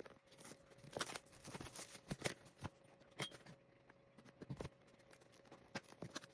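Packaging being handled as a box is opened: irregular light clicks and rustles, thinning out after about three seconds.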